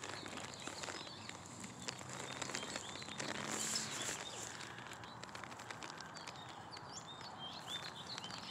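Outdoor ambience: small birds chirping faintly in the background, with scattered light clicks close by. A faint low hum sits under it for a couple of seconds early on.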